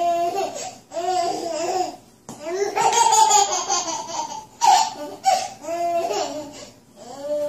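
Baby laughing in several short, high-pitched bouts.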